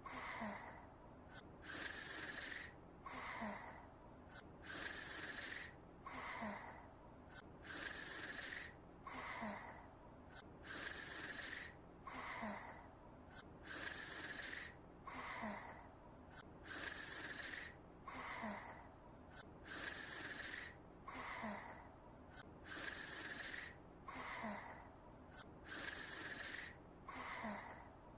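Anime girl character snoring, a cartoon-style snore voiced by an actress: a breathy, hissing breath followed by a short blip, repeating evenly about every three seconds.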